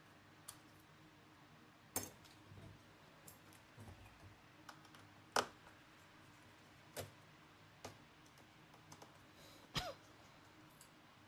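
Scattered sharp clicks and taps of small tools and parts being handled while a MacBook Pro is taken apart, about six separate clicks with the loudest about halfway through.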